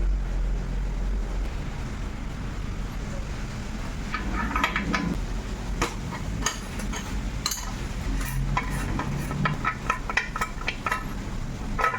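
Scattered metallic clinks and taps of tools and bicycle parts being handled, with a cluster about four seconds in and a quicker run of clicks in the second half, over a steady low rumble.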